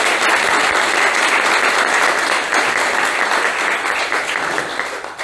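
Audience applauding: dense, steady clapping that begins to die away near the end.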